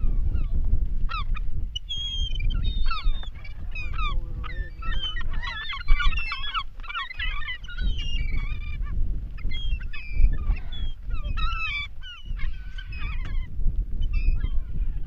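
A flock of gulls calling, many short overlapping cries, busiest a few seconds in, over a steady low rumble.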